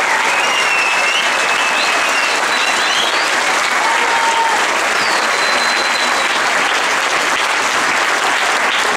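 Crowd applauding steadily, with a few high whistles over the clapping.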